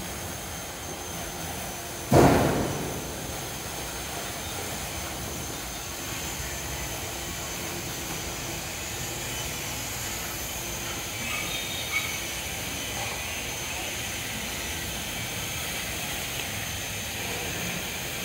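Steady background hiss with a faint, high, steady whine, and one loud thump about two seconds in that dies away within a second.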